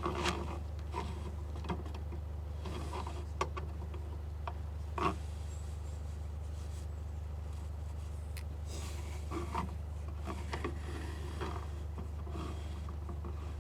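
Soot being cleared from a boat's stove flue: intermittent rubbing and scraping of a brush with scattered light knocks, over a steady low hum.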